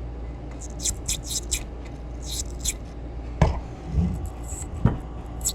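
A small wire-bristle cleaning brush scrubbing in a carburetor passage that is wet with carb cleaner: quick scratchy strokes, with two sharp knocks of the metal carburetor body being handled.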